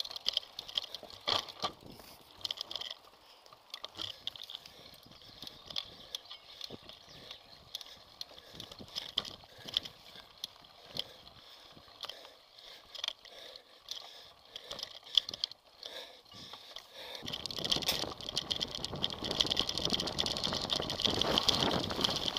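Mountain bike rattling and clattering over a forest dirt trail, picked up by a camera mounted on the rider or bike, with many sharp knocks and clicks. About seventeen seconds in, a louder rushing noise comes in and stays.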